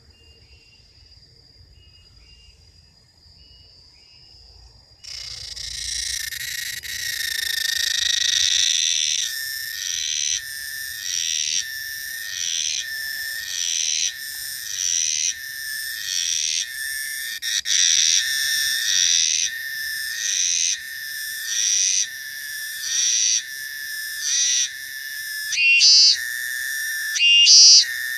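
Cicada singing: after a few seconds of faint high tones and chirps, a loud, high-pitched buzzing song starts about five seconds in and soon settles into a regular pulsing rhythm, each pulse swelling and dropping about every three-quarters of a second, with the last few pulses sharper and louder.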